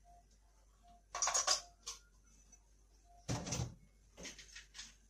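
Clatter of a clear blender cup being handled at the sink, then a short knock about three seconds in as it is set down onto a personal blender's motor base.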